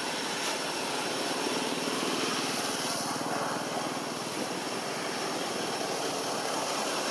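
A steady, distant engine drone that swells slightly a couple of seconds in and then holds.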